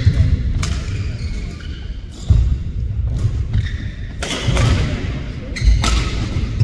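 Badminton rally: rackets striking the shuttlecock with sharp cracks at irregular intervals, over heavy thuds of the players' feet landing and lunging on the court.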